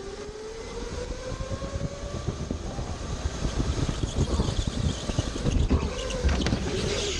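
Electric go-kart accelerating: its motor whine rises in pitch over the first two or three seconds, under a rumble and rattle from the kart that grows steadily louder as it picks up speed.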